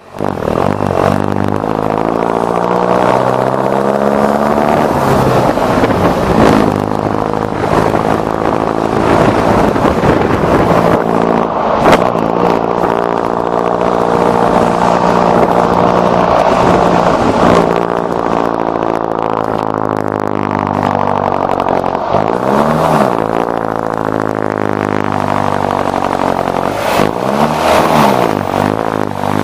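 Mercedes-Benz OF-1418 city bus's six-cylinder turbo diesel engine pulling under load. Its pitch climbs and then drops back several times as it shifts up through the gears, with a few sharp knocks along the way.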